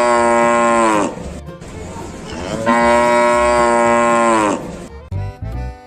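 Cow mooing twice, two long, drawn-out moos, each dipping slightly in pitch as it ends. Near the end a brief burst of music starts.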